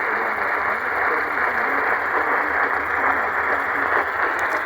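Radio static: a steady hiss from a radio receiver with no clear signal coming through, with faint wavering tones under the hiss.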